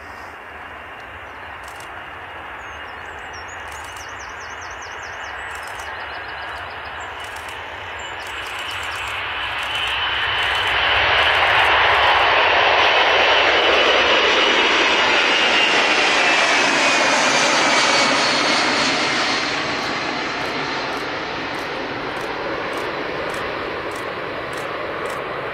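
Boeing C-17 Globemaster III's four turbofan engines at takeoff power. The jet noise builds as the aircraft rolls and lifts off and is loudest as it passes close. A high whine falls in pitch as it goes by, then the sound fades as it climbs away.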